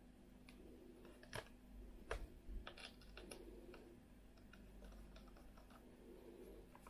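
Small plastic clicks and taps from handling a Fimi X8 SE drone remote controller as its control sticks are twisted into place, most of them coming between about one and four seconds in.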